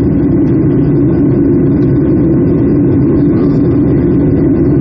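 Steady engine and airflow roar of a Boeing 757-200 heard inside the passenger cabin in flight.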